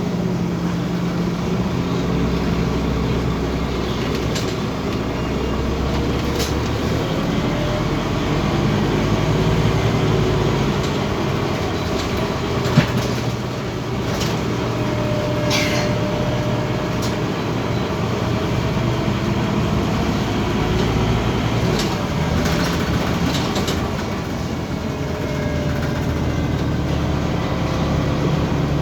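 Scania OmniCity city bus's diesel engine and drivetrain running as the bus drives, the engine note slowly rising and falling with changes in speed. Scattered clicks and rattles, with one sharp knock about 13 seconds in.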